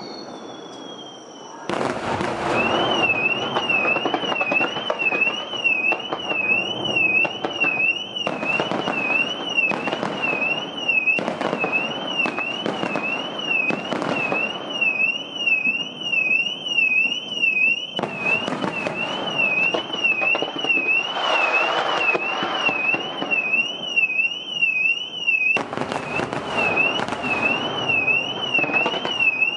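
Aerial fireworks bursting and crackling again and again, loud, and under them a car's security alarm warbling rapidly up and down without a break, set off by the blast from the fireworks launches. The alarm starts a couple of seconds in, just after a big burst.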